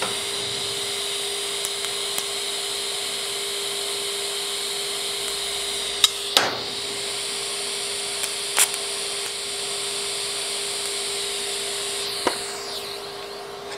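TIG welding setup giving a steady hum with a hiss over it, broken by about four short sharp cracks as the torch strikes brief tack welds on a thin sheet-metal T-joint. The hum drops off near the end.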